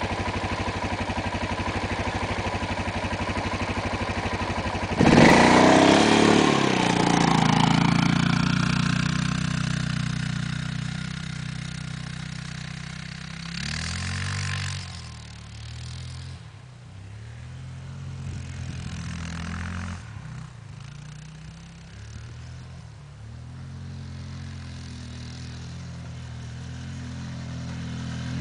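Quad (ATV) engine running steadily close by, then revving hard and pulling away about five seconds in. It fades to a more distant engine note that rises and falls with the throttle as the quad rides through the snow, and grows louder again near the end as it comes back.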